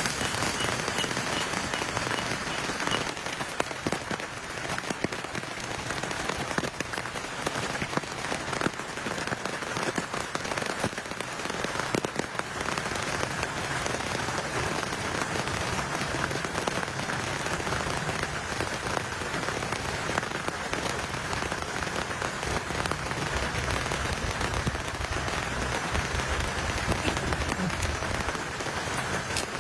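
Rain falling steadily, a dense patter of drops.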